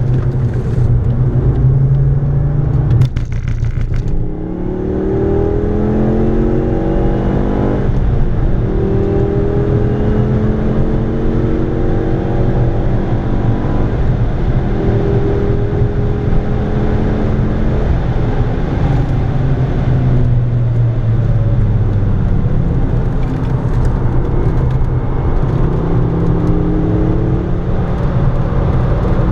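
Ford Focus ST engine heard from inside the cabin under hard track driving, its pitch climbing steadily, breaking at gear changes and climbing again several times, with a drop as the car slows for a corner, over a steady rush of tyre and wind noise.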